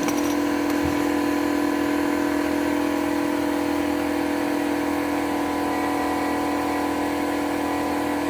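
Ridgid air compressor running steadily with an even motor hum, filling its tank as the pressure climbs past about 44 psi.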